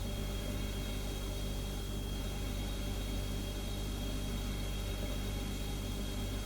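Refrigerator humming steadily: a low, even hum with a thin, high, steady tone above it and a soft hiss, unchanging throughout.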